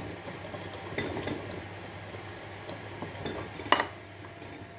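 Batter being stirred in a glass bowl, the metal utensil scraping and clinking lightly against the glass as the flour lumps are broken up, with one sharper clink about three-quarters of the way through.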